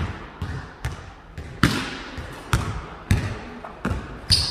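A basketball dribbled on a hard gym floor, about two bounces a second, each thud echoing in the hall. A high sneaker squeak comes near the end.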